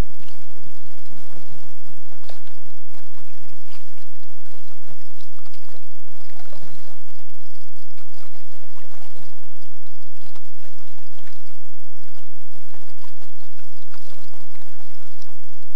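Water splashing and trickling around a sit-on-top kayak as it is paddled: irregular dips of the paddle blade with water dripping and running off it.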